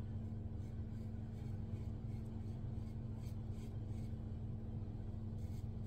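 Gillette Diplomat double-edge safety razor scraping through lathered stubble on the neck in a few faint short strokes, over a steady low hum.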